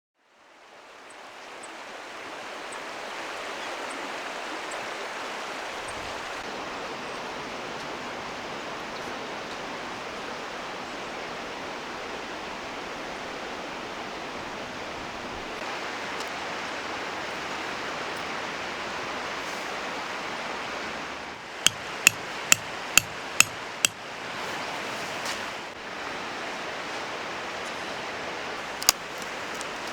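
A steady rushing noise fades in. About two-thirds of the way through comes a quick run of six or seven sharp pops, and another comes near the end: firewood crackling in a fire.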